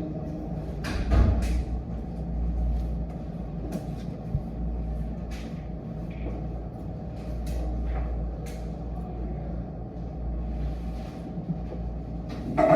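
Steady low background rumble, with scattered light clicks and taps throughout and a short louder sound just at the end.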